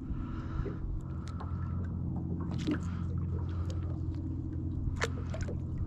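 A steady low motor hum, with scattered light ticks and knocks.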